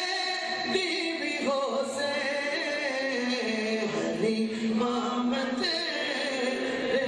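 Men's voices singing a naat unaccompanied, in drawn-out melodic lines with long held, wavering notes and a chorus-like blend of voices.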